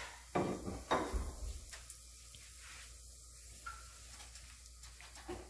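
Whole spices frying in hot oil, sizzling in two short bursts about half a second apart near the start, then settling to a faint frying hiss with a few light clicks.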